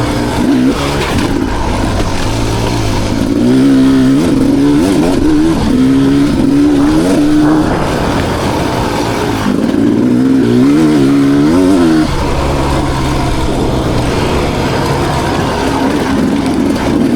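2020 Beta 300 RR's 300 cc two-stroke single-cylinder engine, revving hard and dropping off again and again as the rider works the throttle on the dirt bike, with two stretches of rapid rising and falling pitch.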